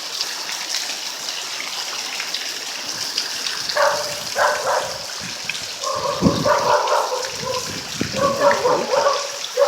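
Heavy rain falling steadily. From about four seconds in, an intermittent pitched sound comes and goes over it, with a few low thuds.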